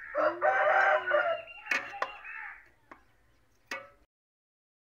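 A rooster crows once, a long call of about two seconds, followed by a few sharp clinks of a steel slotted spoon against the metal pot and bowl.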